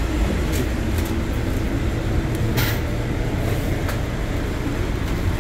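City bus engine running, a steady low rumble, with a short hiss about two and a half seconds in.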